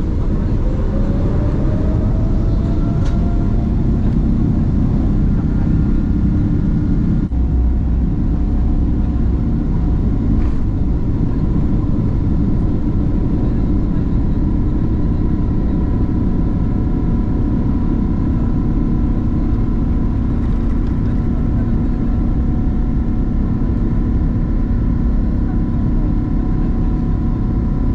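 Boeing 777-200LR's GE90 turbofan engines heard from inside the cabin beside the engine: a loud, deep rumble with a whining tone that rises over the first few seconds and then holds steady.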